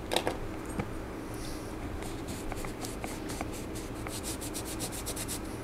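A cloth rag wiping and rubbing a degreased metal bicycle part by hand. A few light clicks come first, then from about two seconds in a quick, even run of short scrubbing strokes.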